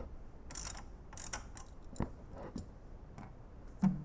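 Scattered metallic clicks and short scrapes of an Allen key working the belt-tensioner screw on a spin bike's steel frame, with a duller knock near the end.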